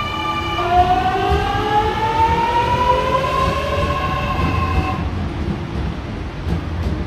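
Electric suburban train accelerating: its traction motors give a whine of several tones that climbs steadily in pitch for about four seconds, then cuts off suddenly, over the low rumble of the train.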